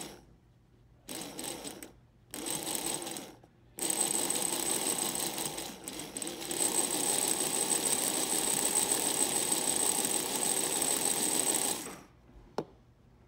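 Small electric motor and gear train of a vintage Playart toy locomotive running loudly with a high whine, in three short bursts and then steadily for about eight seconds before it cuts off, followed by a single click. The owner cannot tell why it is so loud and thinks it sounds like the contacts scraping.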